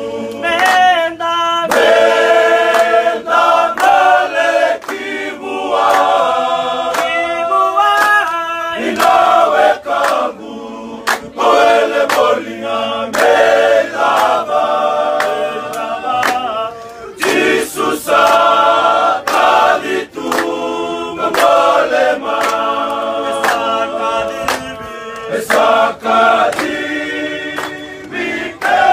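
Choir of several voices singing a hymn in part harmony, in phrases with short breaths between them.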